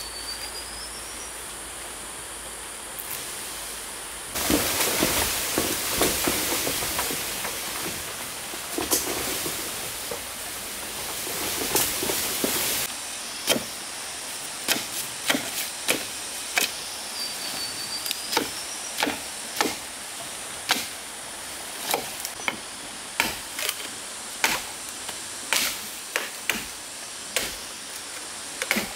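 A run of sharp knocks, about one a second, like tool strikes, begins about halfway through. It follows several seconds of loud rushing noise. A short rising chirp sounds twice.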